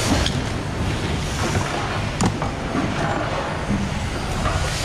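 Steady background noise of a factory assembly floor, with one sharp click about two seconds in.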